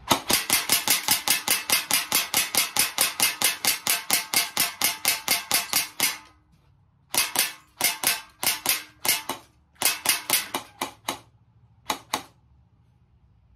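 Airsoft GI Infidel 6 mm semi-automatic airsoft rifle fired as fast as the trigger can be pulled in a magazine dump. The first string runs about six shots a second for some six seconds. After a short pause come three shorter strings and a final pair of shots.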